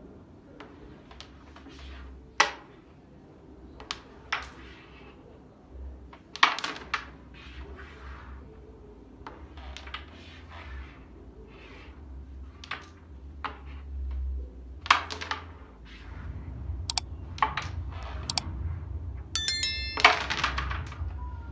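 Carrom striker flicked shot after shot across a wooden carrom board, cracking into the carrom men, which click together and knock into the pockets: sharp clicks every second or two. Near the end a short bright electronic chime sounds over the play.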